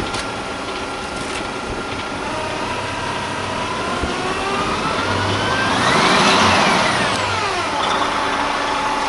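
DAF Euro 6 truck's diesel engine idling, then revved once: its pitch climbs steadily for a few seconds and falls back to idle near the end.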